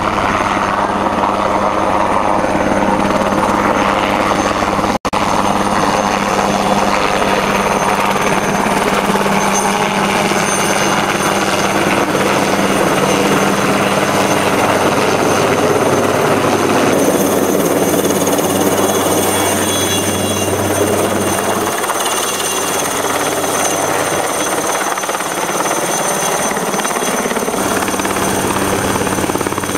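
Light single-rotor helicopter flying low overhead: a steady, loud rotor beat and engine sound, with a very short break about five seconds in. The deepest part of the rotor beat thins out about two-thirds of the way through as the helicopter moves off over the field.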